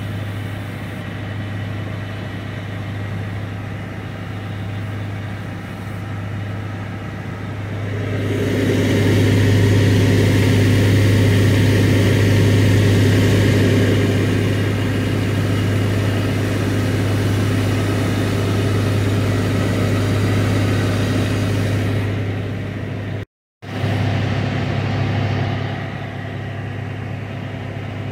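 A vehicle engine running steadily with a low, even drone. About eight seconds in a louder, broad rushing noise swells over it and holds for about fourteen seconds before easing off, and the sound cuts out for a moment a little before the end.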